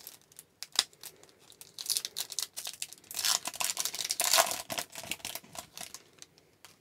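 A hockey card pack's wrapper being torn open and crinkled, with two longer stretches of tearing and rustling about two and three seconds in. Quick clicks of cards being handled run throughout.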